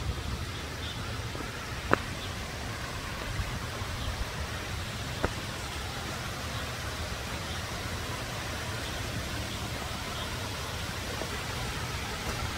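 Small stream running over rock slabs and little cascades: a steady rush of water. Two sharp clicks about two and five seconds in.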